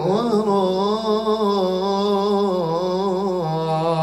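A man reciting the Quran in melodic tajweed style, holding one long note of the recitation that wavers up and down in ornamented turns and steps slightly lower about three and a half seconds in.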